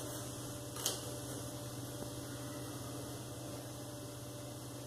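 A steady low electrical hum, with one short snip of scissors cutting through synthetic fabric about a second in.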